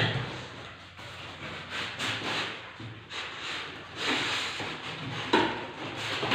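Hands handling the TV's packaging and parts: irregular rubbing and scraping, with a sharp knock at the start and another about five seconds in.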